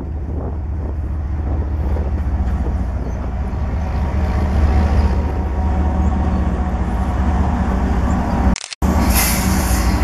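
Lead CN GE ES44AC diesel-electric locomotive and a second unit passing close by at the head of a freight train: the engines run with a steady low rumble and the wheels roll over the rails. The sound drops out for a moment near the end and returns with more hiss.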